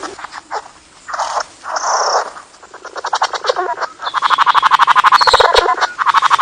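A courting bird's display calls: two short harsh, rasping notes, then a fast rattle of clicks, about a dozen a second, that swells louder partway through.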